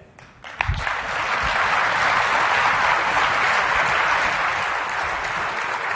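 Large audience applauding, starting about half a second in and swelling within a second or so to steady, sustained clapping.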